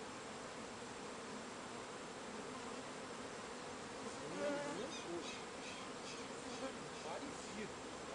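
Swarm of honeybees buzzing as it settles into a hive box: a steady low hum, briefly louder and wavering about halfway through.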